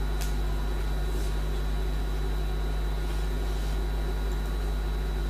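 Room tone in a pause of speech: a steady low hum with an even hiss and a faint high whine, and a few faint soft rustles.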